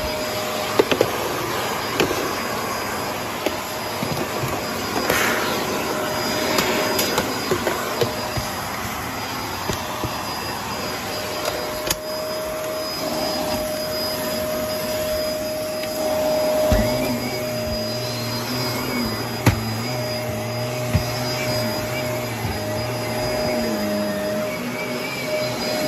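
Upright vacuum cleaner running on carpet with a steady motor whine and scattered small knocks and bumps. A lower hum joins about two-thirds of the way through.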